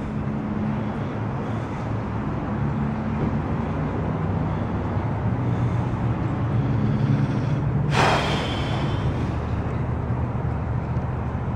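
A steady low machine hum. About eight seconds in, a sudden hiss cuts in and fades over about a second.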